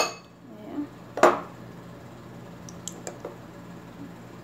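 Dishes and a spoon being handled: a sharp clink right at the start, a second knock about a second in, then a few faint ticks.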